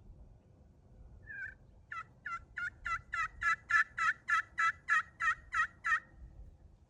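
Purple slate over copper turkey pot call in a cocobolo pot, played with a black locust striker: one soft note, then a run of about fourteen yelps at about three a second, getting louder and then holding level, imitating a hen turkey's yelping.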